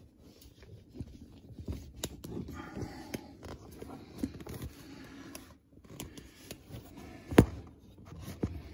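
Handling noise: scattered light clicks, knocks and scrapes, with one sharper knock about seven seconds in.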